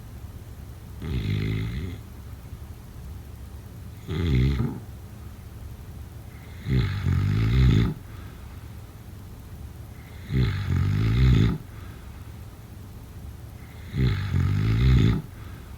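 A person snoring: five rattling snores about every three to four seconds, each lasting about a second, the later ones longer and rising in loudness toward their end.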